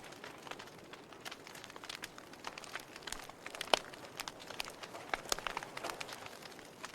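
Wood fire crackling: irregular sharp pops and snaps over a soft steady hiss, with one louder pop a little past the middle.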